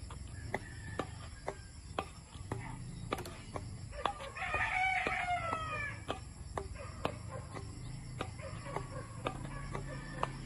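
A rooster crows once, about four seconds in, a drawn-out call lasting under two seconds. It sounds over a run of short, sharp clicks and taps.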